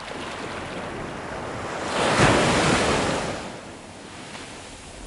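Sea surf washing against a rocky shore: the wash swells to a peak a couple of seconds in, then falls back to a lower steady rush.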